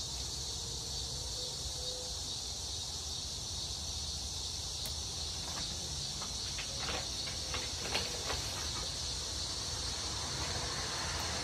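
Steady outdoor background: a high-pitched hiss with a low rumble beneath it. Between about six and eight seconds in come a few light clicks and rustles from a paper instruction sheet being handled.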